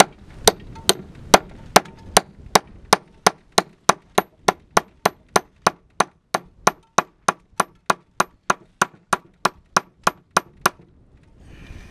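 A 1 kg club hammer striking rock in a steady rhythm, about two and a half blows a second with a short ringing clink on each, chipping at a deeply buried stone; the blows stop about a second before the end.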